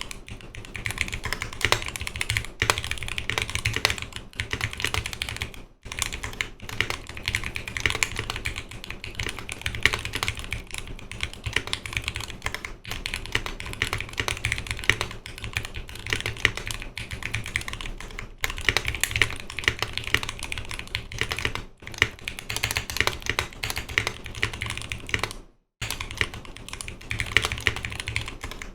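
Continuous fast typing on a Noxary 280 custom mechanical keyboard with lubed Zealio 78g V2 tactile switches, a 5 mm polycarbonate plate and GMK keycaps: a dense run of keystroke clacks, broken by a couple of short pauses.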